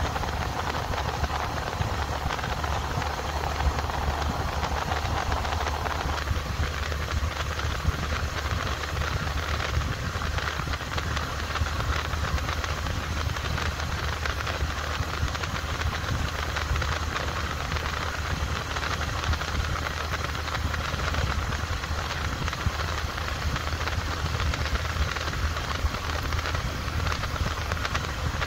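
Motorcycle running at steady cruising speed, its engine hum mixed with a steady rush of wind over the microphone.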